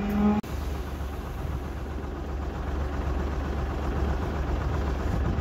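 A concrete poker vibrator hums steadily for about half a second, then the sound cuts off abruptly. A steady low engine rumble follows, like an engine idling.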